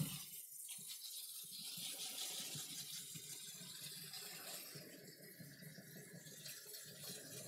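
Kitchen tap water running faintly and steadily over rice in a colander in the sink, with small rattles of the rice and colander as it is stirred by hand to rinse off the starch.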